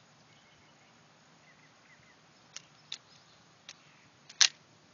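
Airsoft revolver being handled: a few light clicks, then one sharp, much louder click near the end.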